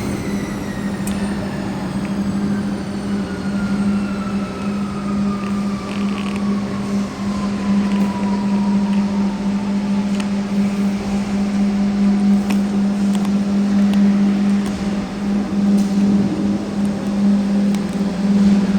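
CNC cutting machine running with a steady low hum, and a whine that slowly falls in pitch over about the first ten seconds.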